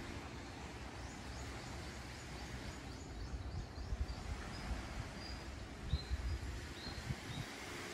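A small bird calling: a quick run of short, high rising chirps, then several short, high whistled notes, over a steady rush of surf and wind. A few low thumps come about halfway through and again near the end.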